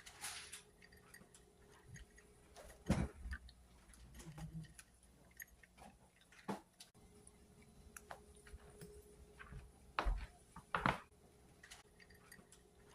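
Cat eating, small irregular crunching clicks as it chews, with a few louder knocks.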